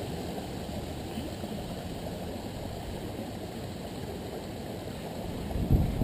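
Steady low outdoor rumble of creek water and wind on the microphone, growing louder about five and a half seconds in.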